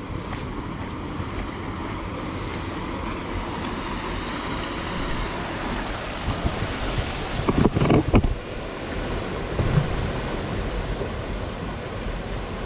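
Steady rush of flowing stream water mixed with wind buffeting the microphone, with a few loud bumps and rustles a little past the middle.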